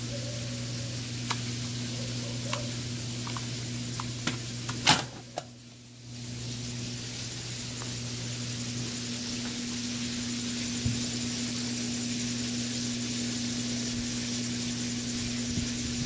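Steady hum of a top-loading Electrolux washing machine, with light plastic clicks from its lint filters being handled and one sharp knock about five seconds in.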